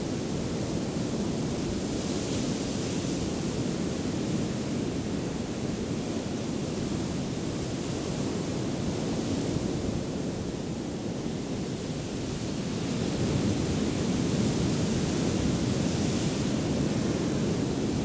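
Ocean surf breaking on a beach: a steady rushing noise that grows a little louder about two-thirds of the way through.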